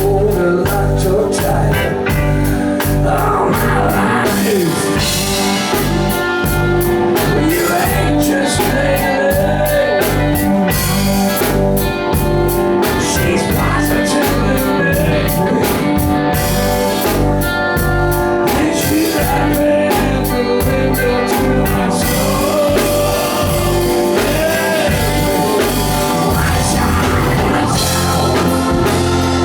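Live blues-rock band playing: singing over electric guitar and a steady drum-kit beat.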